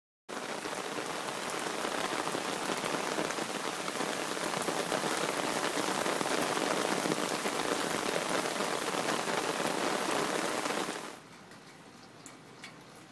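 Rain falling in a steady, dense hiss. About eleven seconds in it drops to a much quieter patter with a few single drops.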